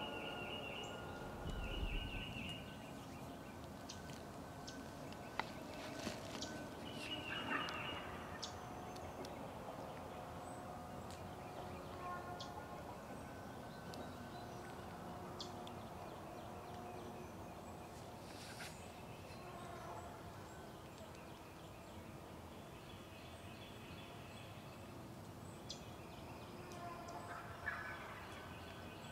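Wild turkey gobblers gobbling, rapid rattling calls heard several times: a cluster in the first eight seconds and another near the end. Faint songbird chirps sound between them.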